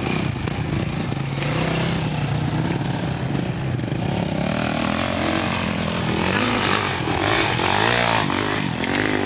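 Dirt bike engines running and revving as the bikes ride around. Near the end one bike passes close and its engine note rises and falls.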